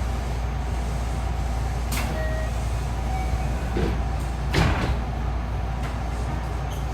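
Running noise inside a JR West 207 series electric train carriage: a steady low rumble, with a few light clicks and one louder sharp clack about four and a half seconds in.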